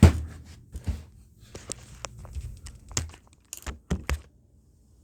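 A string of knocks and thumps from things being handled and moved about, the loudest right at the start and a quick cluster about four seconds in.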